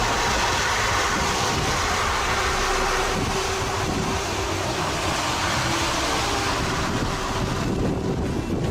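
Steady rushing wind and vehicle noise from a storm-chase car, with a faint steady hum underneath.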